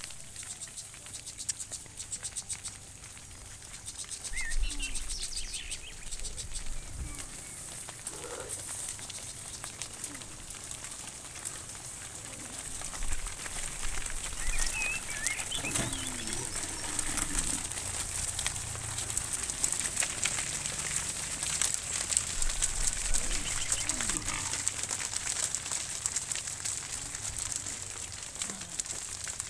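A herd of cows on the move, with scattered hoof knocks and a few short, low moos. Small bird chirps and a steady high hiss run underneath.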